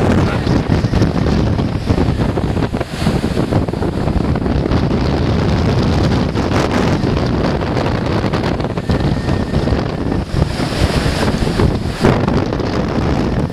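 Force 10 gale wind blowing hard across the microphone in a loud, uneven, continuous buffeting, over the rush of storm surf breaking on a stone breakwater.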